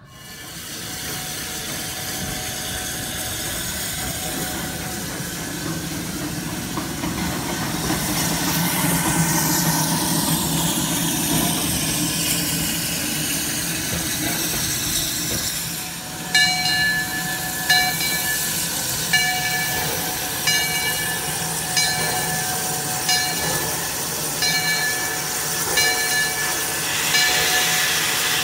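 Steam locomotive No. 126 hissing steam, growing louder over the first few seconds. From about halfway through, its bell rings steadily, one clang about every second and a half, over the hiss.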